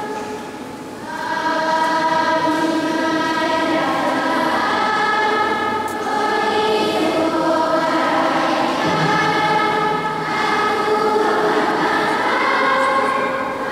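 A church choir singing a hymn in long, held notes, with a brief lull about a second in before the voices swell back.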